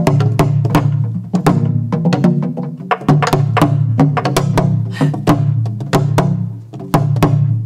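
Korean pansori barrel drum (buk) played with a wooden drumstick and the bare palm: a run of deep drum strokes mixed with sharp clacks of the stick, in an uneven rhythmic accompaniment pattern (jangdan).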